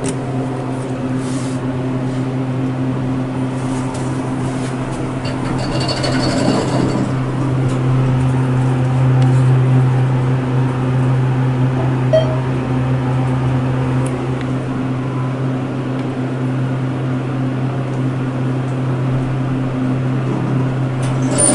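Thyssenkrupp elevator heard from inside the cab as it travels down one floor: a steady low hum that swells slightly midway.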